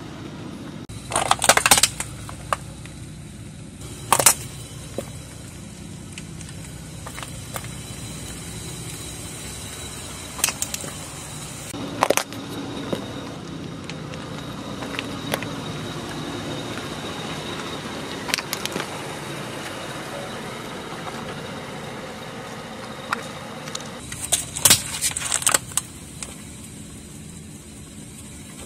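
Hard plastic objects cracking and crunching under a slowly rolling car tyre: sharp cracks every few seconds, with a cluster of them near the end, over a steady low rumble.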